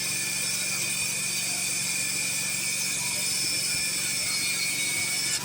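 Gas-engined portable band sawmill running steadily as its blade cuts through a log, a constant engine hum under a high, steady whine.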